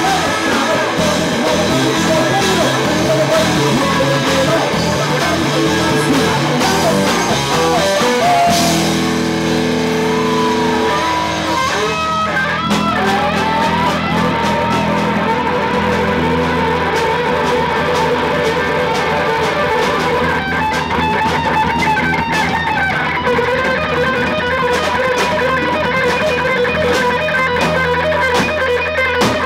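Live rock band playing an instrumental passage on electric guitar, bass and drum kit. About a third of the way in, the steady drumming drops out and held guitar chords ring, with a few sliding notes. The drums come back in about two-thirds of the way through.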